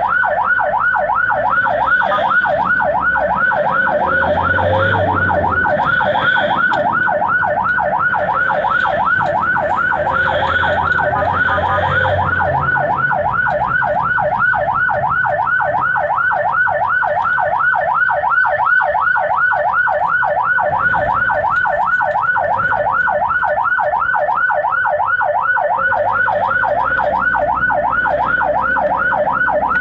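Ambulance's electronic siren in fast yelp mode, sweeping up and down about three times a second without a break, heard from inside the cab. A low engine and traffic rumble sits beneath it and swells twice in the first half.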